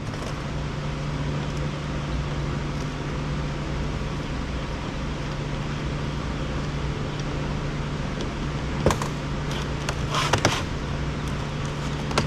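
A steady low machine hum, with a few light clicks and taps about nine and ten seconds in as plastic parts of a robot vacuum are handled.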